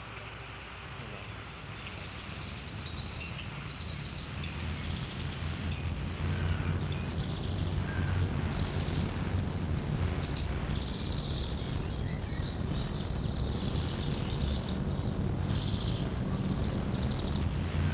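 Outdoor ambience: small birds chirping, with repeated short, high, falling calls throughout, over a steady low rumble that grows louder over the first few seconds.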